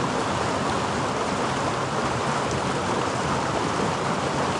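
A small mountain trout stream rushing steadily over a shallow riffle.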